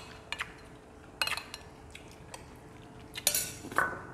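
Metal spoons clinking and scraping against ceramic bowls and plates while eating: short clinks in small clusters, about a third of a second in, just after a second in, and again near the end.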